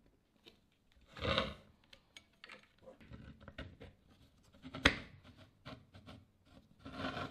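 Hands handling and fitting small parts on a miniature V-twin model engine, including its copper fuel line: scattered light clicks and rubbing, two louder rubbing sounds about a second in and near the end, and one sharp click near the middle.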